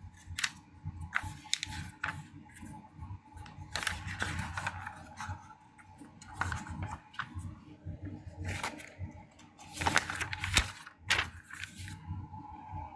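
Packaging being pulled off vacuum cleaner parts: rustling with irregular clicks and knocks of plastic parts being handled, busiest about four seconds in and again near the ten-second mark.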